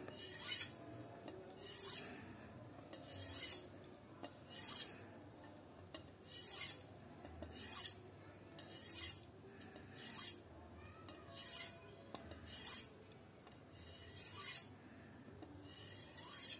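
Carbon-steel knife blade drawn stroke after stroke along a flat abrasive sharpening steel (masat), giving a rasping scrape with each pass. There are about a dozen strokes at a steady pace, a little more than a second apart.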